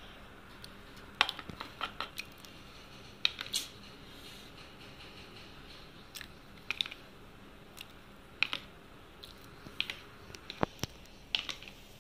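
Scattered light clicks and taps of a spoon against a bowl and pan, about a dozen over the stretch, as yogurt is scooped out onto cubed paneer and capsicum.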